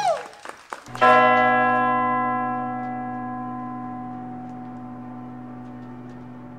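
A single deep bell stroke about a second in, ringing on and slowly fading, after a brief cut-off of salsa music.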